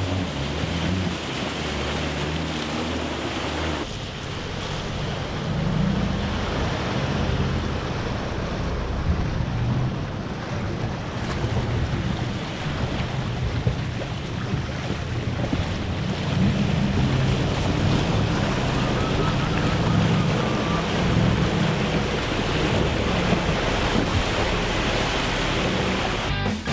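Off-road SUVs driving through a shallow water crossing, with water rushing and splashing around the wheels and the engine rumbling underneath. The first few seconds are the Jeep Wrangler Rubicon; about four seconds in the sound changes to the Range Rover wading through, with wind buffeting the microphone.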